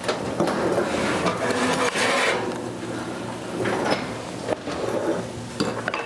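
Metal broiler pan being drawn out of an oven and set down on a counter: scattered clanks, knocks and scraping, with paper rustling.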